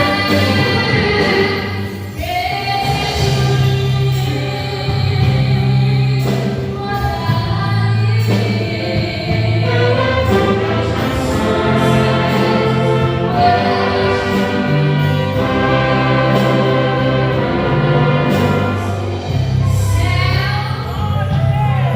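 Gospel band playing a praise song, with voices singing over a steady bass line.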